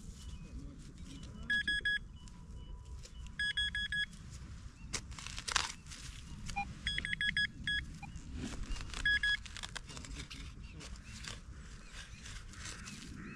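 Metal detector beeping in four short bursts of rapid pulsed bleeps as it is passed over a target in a dug plug of soil, a target that reads like a coin. Soil is scraped or rustled about halfway through.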